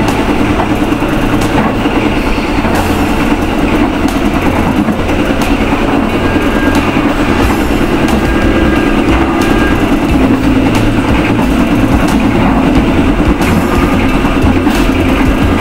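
Passenger train carriage running along the track, heard from on board: a steady, loud rumble with sharp wheel clicks over the rail now and then.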